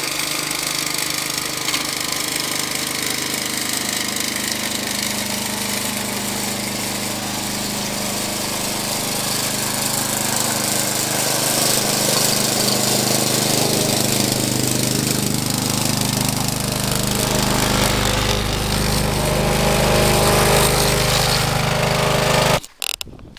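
Walk-behind petrol lawn mower running steadily, growing louder as it comes closer. The sound cuts off suddenly near the end.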